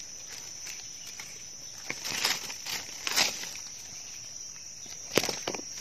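Insects buzzing steadily at one high pitch, with crackling rustles of dry leaf litter about two to three seconds in and a sharp snap about five seconds in.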